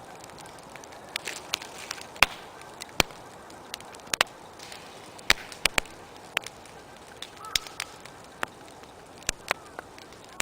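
Wood bonfire crackling: irregular sharp pops and snaps, one or two a second, over a steady hiss of flame.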